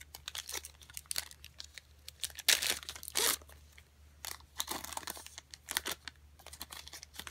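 Foil trading-card pack being torn open, the wrapper crinkling in short scratchy bursts, the loudest about two and a half to three seconds in.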